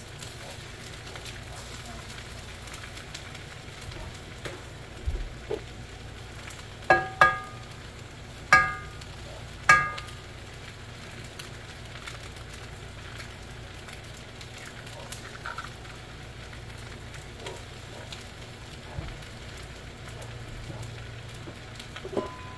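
Shrimp fried rice sizzling in a HexClad stainless pan over a gas burner while it is stirred. About a third of the way in, the utensil strikes the pan four times with bright, ringing metallic clinks, and a few lighter taps fall elsewhere.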